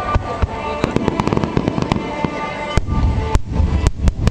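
Aerial fireworks bursting, with quick crackling strikes and then several heavy bangs with a deep rumble in the second half, over music playing through the show's loudspeakers.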